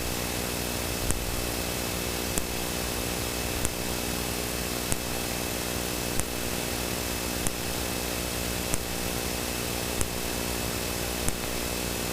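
Steady hum of a Cessna Citation V's jet engines at idle as heard in the cockpit, with a sharp tick repeating about every second and a quarter.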